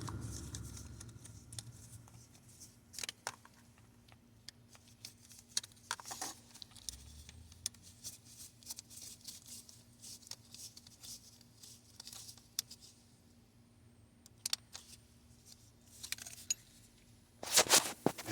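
Sparse, irregular clicks and small metallic taps of hand-tool work on a hose clamp on a fuel line, with a louder clatter near the end.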